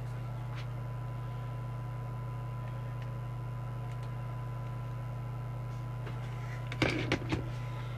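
Steady low electrical hum with a faint, thin steady high tone from the test bench equipment. About seven seconds in there is a short cluster of knocks and handling clatter.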